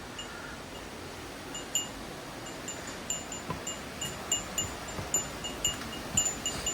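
A small metal bell ringing in short, clear pings, irregularly two or three times a second, starting about one and a half seconds in, over a steady background hiss.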